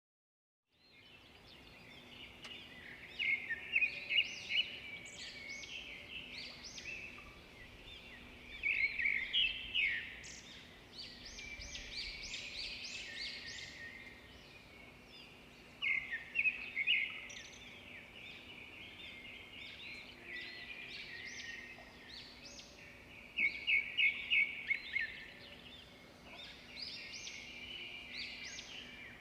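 Birds chirping in dense runs of quick, high calls, louder in bursts several seconds apart, over a faint steady hum.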